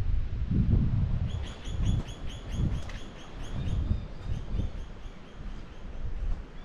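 A bird calling a fast run of short, repeated falling notes, about five a second, that start about a second in and grow slower and fainter toward the end. Low gusts of wind rumble on the microphone and are louder than the bird.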